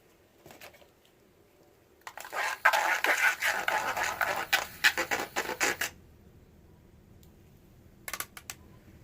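Soap-making containers and utensils being handled: about four seconds of dense scratching and clattering with many sharp ticks, then a few light clicks near the end.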